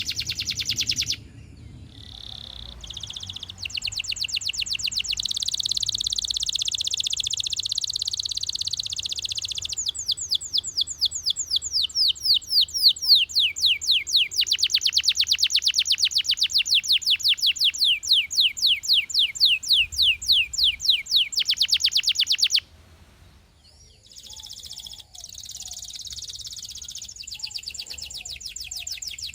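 Domestic canary singing a long song of rapid trills. Buzzy rolls give way to long runs of fast, repeated downward-sweeping notes. The song breaks off briefly about three-quarters of the way through, then starts again.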